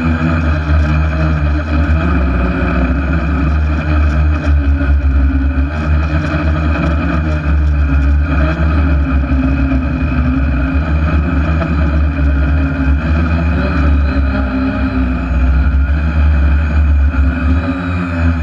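Spider hexacopter's six electric motors and propellers whirring steadily, heard from a camera mounted on the aircraft, over a strong low rumble.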